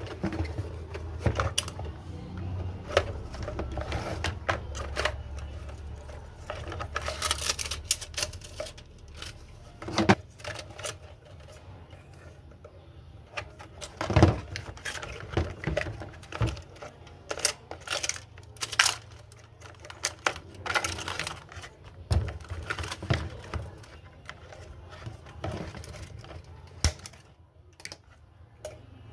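Irregular clicks, taps and knocks of hard plastic and metal parts being handled and fitted, with a faint low hum under the first few seconds.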